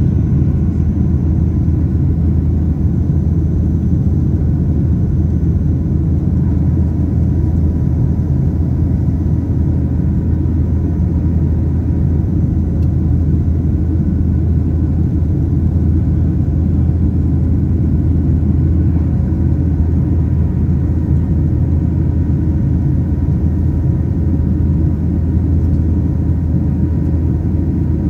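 Steady cabin rumble of a Boeing 737-900 climbing after takeoff, heard from a seat over the wing: its CFM56-7B turbofans at climb thrust and the airflow over the fuselage, with faint steady whining tones above the rumble.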